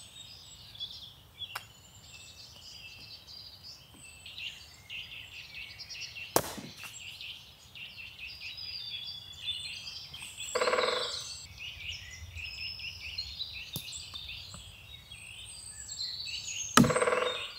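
Songbirds chirping and singing throughout, with a few sharp knocks, a loud one about six seconds in. Two short voice-like sounds come near the middle and just before the end.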